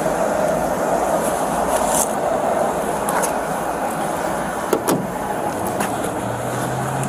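Steady rustle of jacket fabric rubbing over a body-worn camera as the wearer moves, with a few sharp clicks in the middle. A low steady hum comes in near the end.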